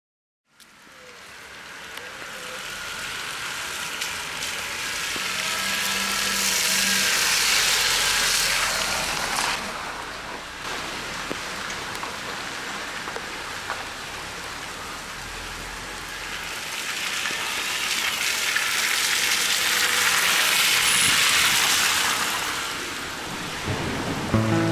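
Rain hissing steadily on wet pavement and parked cars. It fades in over the first couple of seconds and grows louder twice.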